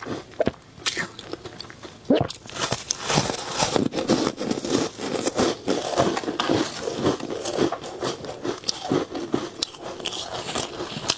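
Close-miked crunching and chewing of ice chunks coated in matcha powder, quieter for the first two seconds, then dense, irregular crackling crunches.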